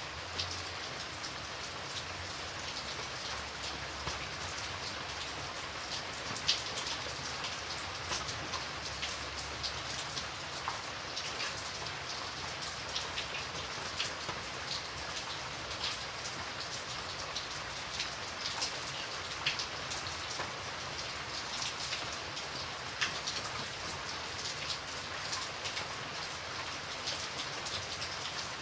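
Steady rain falling, an even hiss with many distinct raindrops ticking on a surface throughout.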